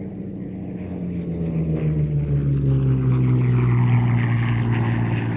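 Hispano Buchon's Rolls-Royce Merlin V12 engine and propeller passing overhead, growing louder to a peak about four seconds in while its pitch falls steadily as the plane goes by.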